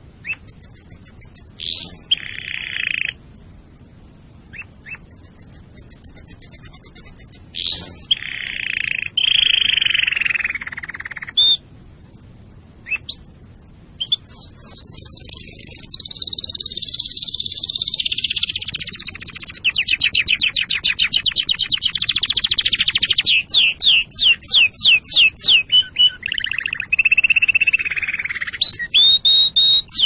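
Domestic canary singing a long, varied song of fast high trills, rising whistled sweeps and buzzy lower phrases, broken by two short pauses. In the second half it runs almost without a break into a fast roll and then a string of quickly repeated rising notes.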